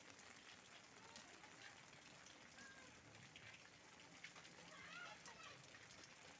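Faint, steady patter of rain, with many small drop ticks. A brief faint wavering call comes about five seconds in.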